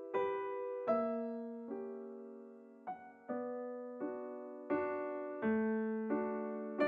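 Background piano music: soft notes and chords struck in a slow, even rhythm, each left to ring and fade.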